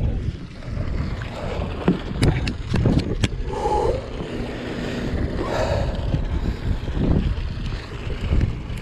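Wind rumbling on the microphone with handling noise from a heavy conventional fishing reel and rod being worked during a tuna fight. A cluster of sharp clicks and knocks comes about two to three seconds in.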